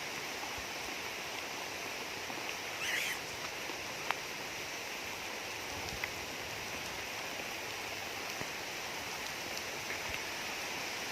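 Heavy rain falling steadily, an even hiss, with a short high chirp about three seconds in.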